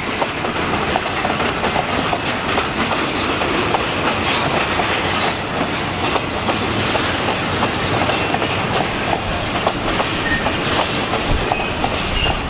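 Freight train of loaded log cars rolling past close by, wheels clacking steadily over rail joints, with a few brief faint high squeaks from the wheels.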